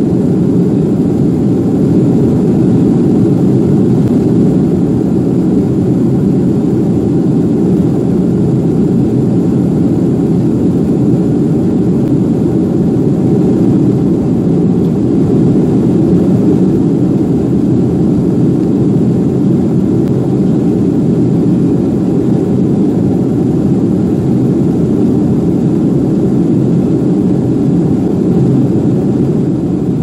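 Jet airliner cabin noise in flight: the engines and rushing airflow heard from inside the cabin as a loud, steady, low rumble.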